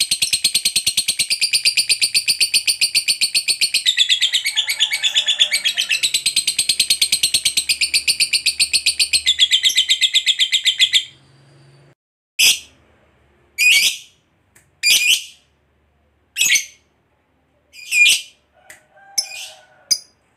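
Masked lovebird giving a long 'ngekek' chatter: a rapid, shrill string of fast-repeated notes lasting about eleven seconds. It then breaks off and, after a short pause, gives single short shrill calls about every second or so.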